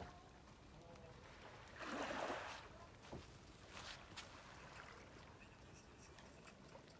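Faint lapping of small waves on a sandy shore, with one louder wash about two seconds in and a few small clicks.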